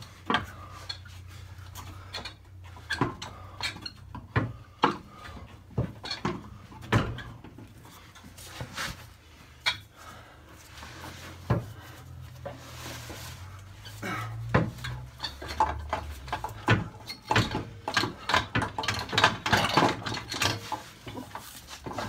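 Irregular metallic clunks, knocks and scrapes of a Citroen C1's manual gearbox being pushed and wiggled by hand against the engine to locate its input shaft on the clutch spline, coming thick and fast near the end.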